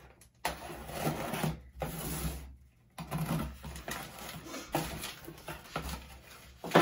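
Cardboard shipping box being opened by hand: scratching and tearing along the taped seam, then the flaps pulled back and crumpled packing paper rustled. A sharp tap comes near the end.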